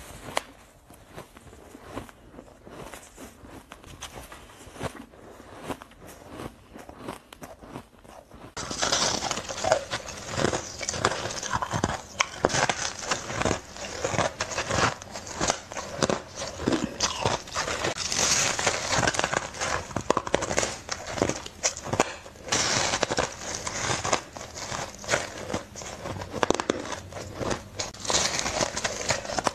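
Close-miked biting and chewing of soft, powdery frost ice: crisp crunching and crackling, with no talking. It is fairly quiet at first, then about eight seconds in it becomes much louder and denser and stays that way.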